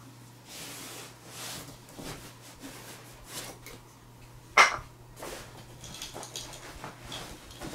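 Gear being handled and rummaged out of a nylon backpack: rustling and small clicks, with one sharp knock about four and a half seconds in as an item is set down.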